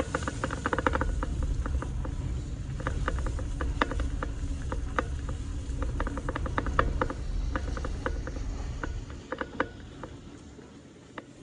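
Car tyres crackling and crunching over ice and slush at low speed, heard from inside the cabin over a low rumble. The crackles come irregularly, many to the second, and the rumble drops away near the end.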